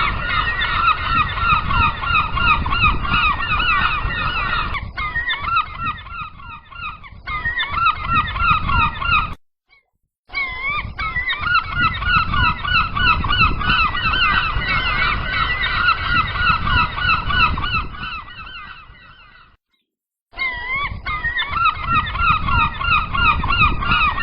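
A flock of gulls calling together, a dense chorus of many overlapping harsh cries. The sound fades and cuts out briefly twice, about ten and twenty seconds in, then comes back at full strength.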